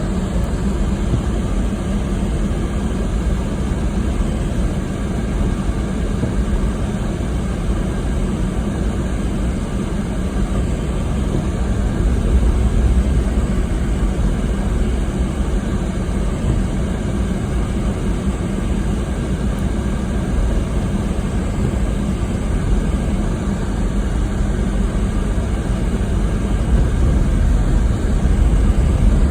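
Blizzard wind blowing hard and steadily, a deep, continuous rush that swells slightly about twelve seconds in and again near the end.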